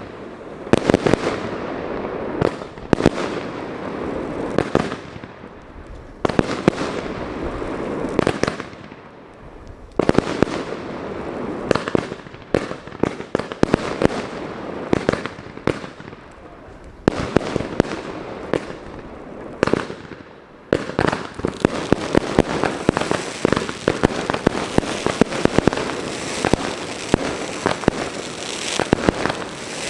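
Fireworks display: rapid bangs and crackling shell bursts in waves that die down and start again every few seconds, building to a dense, continuous crackling barrage in the last third.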